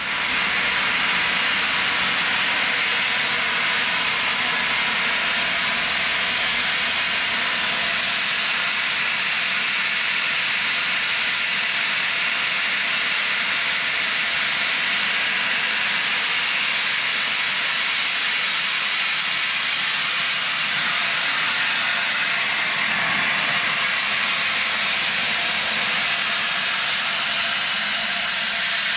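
Loud steady hiss of steam escaping from the steam locomotive LNER A4 4498 Sir Nigel Gresley. It starts suddenly and carries on without a break.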